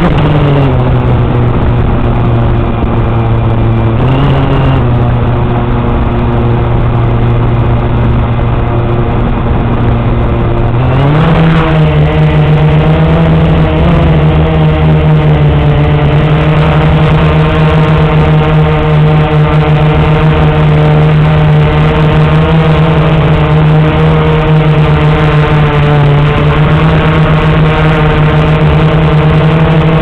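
Blade 350QX quadcopter's brushless motors and propellers buzzing steadily. About eleven seconds in the pitch steps up and holds higher as it throttles up and climbs.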